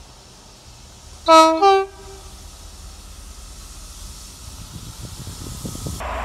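A British train's two-tone horn sounds a short low note and then, at once, a short higher note about a second in. Under it runs the low rumble of the train, which grows louder towards the end.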